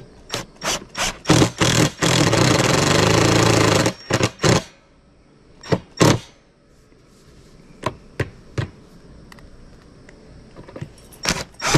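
Cordless driver with a T25 bit driving a large screw through a metal threaded tenon into cypress end grain. It comes as a series of short trigger bursts, then a steady run of about two seconds, a few more short bursts, a pause, and another run starting near the end.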